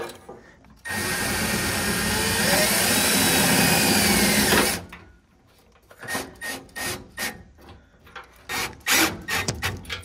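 Milwaukee cordless drill/driver driving a screw into the furnace's sheet-metal cabinet, running continuously for about four seconds with its pitch climbing. This is followed by several short bursts and knocks.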